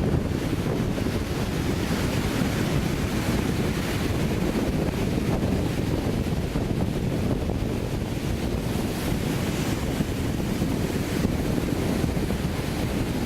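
Sea waves breaking and washing on a sandy beach, with wind buffeting the microphone as a steady low rumble.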